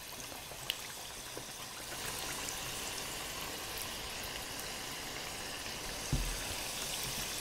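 Pastry turnovers frying in a saucepan of hot oil: a steady, quiet sizzle and bubbling that grows a little stronger about two seconds in. One dull knock near the end.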